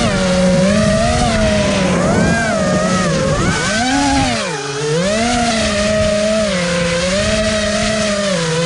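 FPV quadcopter's electric motors and propellers whining, the pitch rising and falling constantly with the throttle. The level dips briefly about four and a half seconds in, then the whine comes back up.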